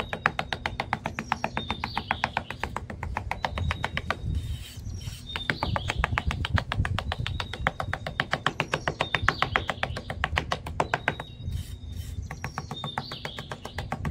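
A small hand trowel scraping and patting across sand in quick, rapid strokes, pausing briefly twice. Short bird chirps sound every second or two.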